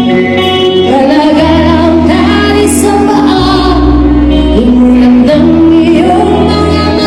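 A live band playing with a woman singing lead: she holds long notes, sliding up into some of them, over a steady bass line.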